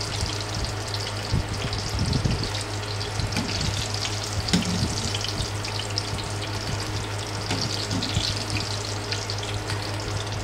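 Hot oil sizzling and crackling steadily as chicken-macaroni balls deep-fry in a pan, with a few light knocks of a wire mesh skimmer working in the pan. A steady low hum runs underneath.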